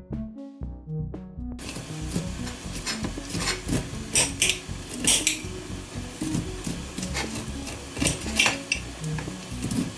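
Knife slicing kernels off an ear of sweet corn, its blade scraping and clicking sharply against a china plate in irregular strokes, over background music. Music is heard alone for about the first second and a half.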